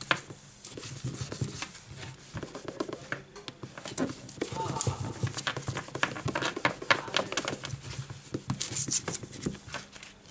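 Paper tissue rubbing over the glass of a smartphone's new display: continuous rustling and rubbing with many small clicks and taps. There is a louder burst of paper rustle about nine seconds in.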